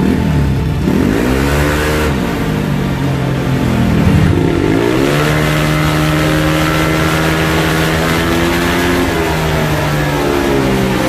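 Bored-up Yamaha Aerox scooter's single-cylinder four-stroke engine revving on a chassis dynamometer through its JVT V3 exhaust, the rear wheel driving the roller. The revs rise and fall, climb again and hold nearly steady for about four seconds, then drop and pick up once more near the end.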